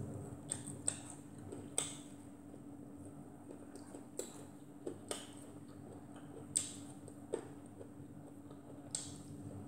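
Quiet eating sounds: scattered soft clicks and smacks as fried fish is chewed and picked apart by hand, over a faint steady hum.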